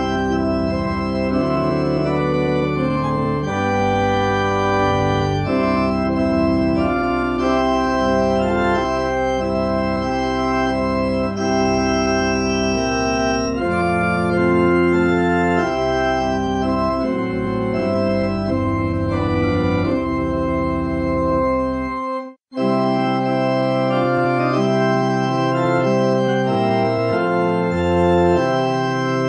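Organ playing a hymn accompaniment in steady, held chords, with one brief break about 22 seconds in.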